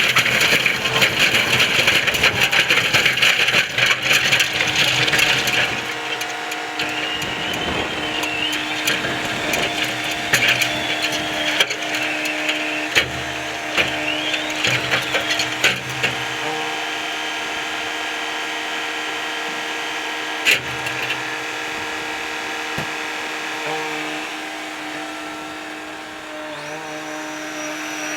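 John Deere 9500 combine harvester running: a steady machine whine and hum with light rattles and clicks, its pitch sliding down at the very end.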